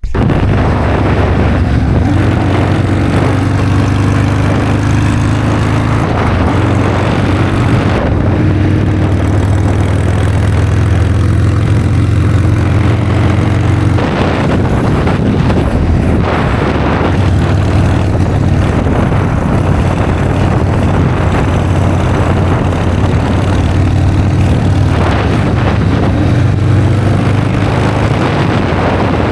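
Harley-Davidson V-twin motorcycle engine running steadily, a deep low drone under a broad rushing noise.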